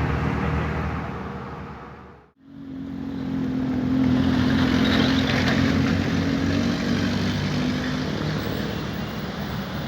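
Bus engine running with road noise, the engine's pulsing drone strong at first. It fades almost to nothing just after two seconds in, then returns as a steady drone.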